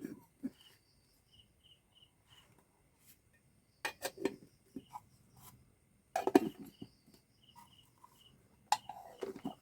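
Unboxing handling sounds, sharp clicks and short rustles of packaging, in three clusters about four, six and nine seconds in. Faint, evenly spaced high chirps sound between the clusters.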